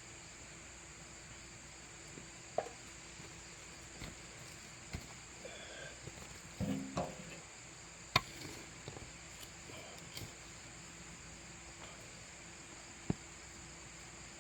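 Steady high chirring of crickets or other insects, with scattered knocks and scrapes of potatoes being dug from garden soil; the sharpest knock comes about eight seconds in.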